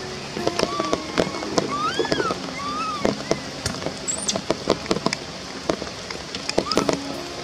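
Baby macaque crying: a series of short, high, arching whimper calls, several in the first three seconds and one more near the end, over a patter of sharp clicks.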